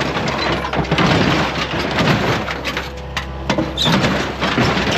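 An excavator crushing a car: irregular metal crunching and cracking impacts over the steady hum of the excavator's engine.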